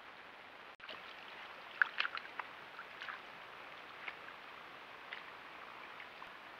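South American tapir's feet splashing and squelching in a shallow muddy wallow, with a quick cluster of wet steps about two seconds in and a few scattered ones after, over a steady background hiss.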